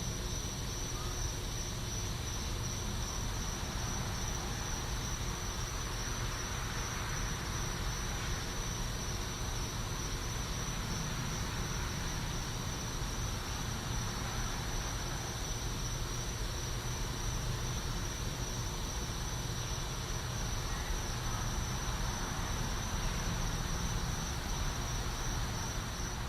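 Night-time cricket chorus in a back yard: a steady, pulsing high-pitched trill, over a low steady background rumble.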